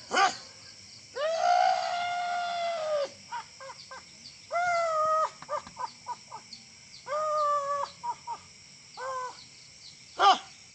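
A person's high-pitched shrieks and wailing cries: a sharp yelp, then a long held cry of about two seconds followed by several shorter ones, and another sharp yelp near the end.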